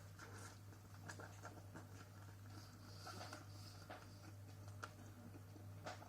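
Near silence: faint, irregular clicks and soft mouth sounds of someone chewing a bite of burger, over a steady low hum.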